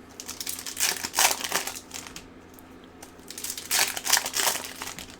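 Plastic wrapper of a hockey card pack or box crinkling as it is handled and torn open, in two bouts of rustling, about a second in and again near four seconds.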